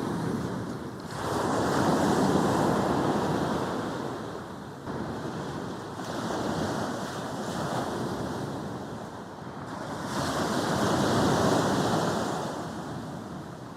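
Sea waves breaking and washing up a sandy beach, rising and falling in slow surges: a big one about two seconds in, a smaller one in the middle and another big one about eleven seconds in, ebbing away near the end.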